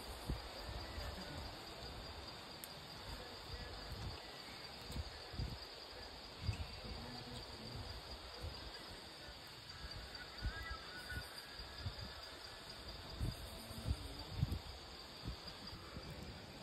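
Steady chorus of insects, a constant high chirring hiss, with scattered low thumps on the microphone.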